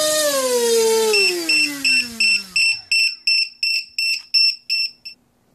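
Cobra 2208 2000kv brushless motor with a 6x4.5 propeller spinning down as the throttle is pulled off, its hum falling steadily in pitch and dying away over about two and a half seconds. From about a second in, a LiPo cell-voltage alarm beeps rapidly, about three high beeps a second, with the battery run down. The beeping stops about five seconds in.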